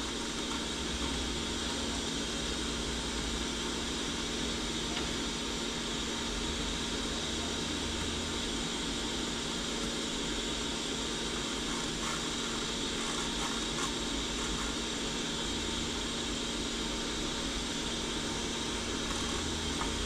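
Hot air rework gun blowing steadily at full airflow, an even hiss with a low hum, heating a USB port's solder joints to desolder it from the circuit board.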